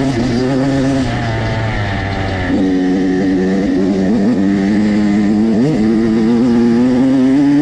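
Off-road dirt bike engines running on a trail ride, with the throttle opened and closed so the pitch dips and then climbs in quick blips. A second, steadier lower engine note runs beneath.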